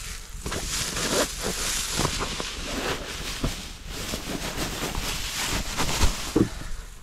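Dry grass and reed stalks rustling and crackling as they are handled and stuffed into a duck blind's cover, close to the microphone, with wind rumbling on the microphone. There is a louder knock about six seconds in.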